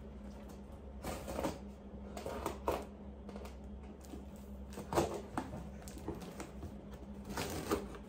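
Cardboard box and packing tape being handled and picked at to open it: irregular scratches, crinkles and light knocks of the cardboard, with a sharper knock about five seconds in.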